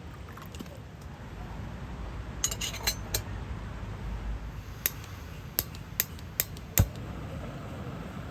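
Dishes and utensils clinking and knocking: a quick cluster of clinks a few seconds in, then five separate sharp clinks, the last one the loudest with a dull knock. A low rumble runs underneath.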